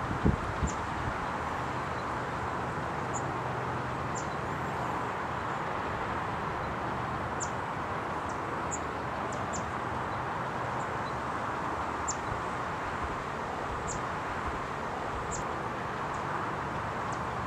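Steady outdoor ambience: an even rushing hiss with brief, faint high-pitched chirps every second or two, and a few wind buffets on the microphone at the very start.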